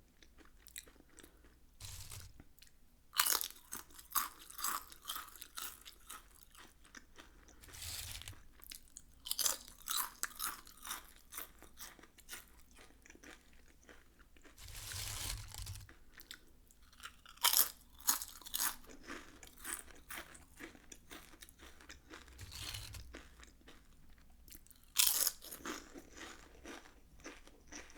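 Close-up crunching of Lay's potato chips being bitten and chewed: several sharp bites, each followed by a run of quicker crisp crunches as the chips are chewed.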